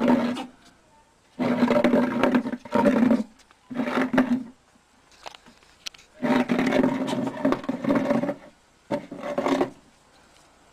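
A loud, low-pitched voice-like call repeated in about five bursts of one to two seconds each, with short silent gaps between them.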